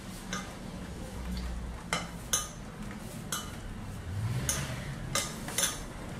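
A spoon clinking and knocking against a glass mixing bowl, about seven sharp irregular clicks, as baguette dough is folded over on itself to develop the gluten.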